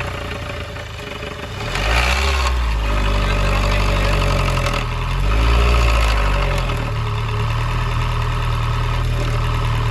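Skoda Superb 1.8 TSI four-cylinder turbo petrol engine running at idle, its speed shifting up and down twice. The speed shifts are the sound of the cam timing advancing and retarding improperly: oil pressure is leaking internally, so the cam adjuster sticks at full advance or full retard.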